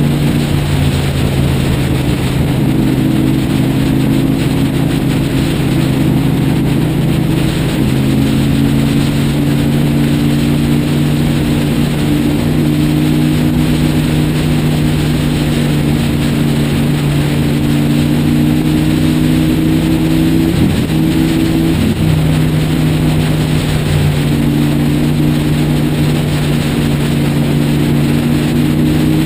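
Motorcycle engine running at highway cruising speed, recorded from the bike itself, with a steady rush of wind noise. The engine note holds steady and creeps slowly up in pitch, easing off briefly about a quarter of the way in and again about two-thirds in.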